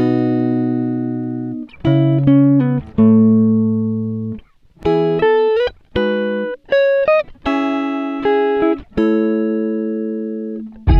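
Background music: a plucked guitar playing single notes and chords that each ring out and fade, in short phrases with brief gaps between them.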